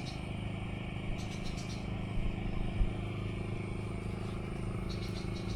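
A steady engine hum, with short bursts of high, rapid chirping about a second in and again near the end.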